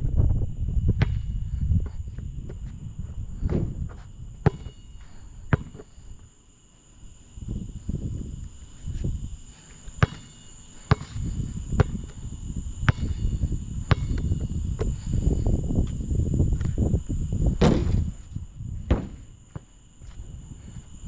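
Basketball bouncing on a hard court, sharp bounces at irregular intervals and about once a second for a stretch, with one louder hit near the end. A steady insect trill and a low, fluctuating rumble run underneath.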